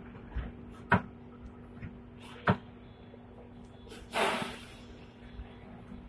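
Cab noises of a Hong Kong double-decker tram over a steady low hum: two sharp clicks about a second and a half apart, then a short burst of hiss about four seconds in.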